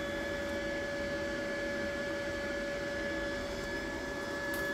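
A steady machine hum with a constant high whine held at one pitch.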